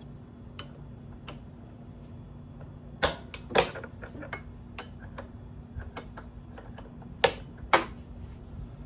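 Metal tools and small brake parts clicking and clinking as brake hoses are worked off a motorcycle's brake-line manifold. There are scattered light ticks, with two pairs of sharper clanks, one about three seconds in and one near the end, over a faint steady hum.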